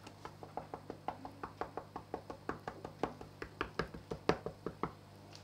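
A spoon clicking against the side of a metal saucepan as porridge is stirred quickly, about six clicks a second, stopping near the end.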